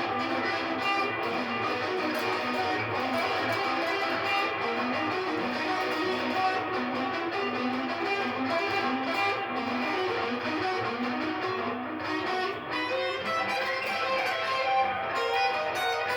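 Electric guitar playing a lead lick, a continuous run of quick notes.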